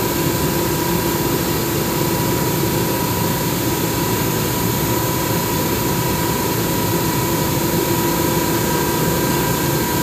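Steady machinery noise, running evenly throughout, with a thin high whine held on one pitch over it.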